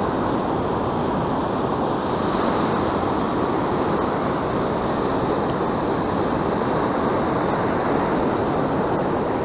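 Steady rushing noise of ocean surf breaking on a sandy beach, with no distinct sounds standing out.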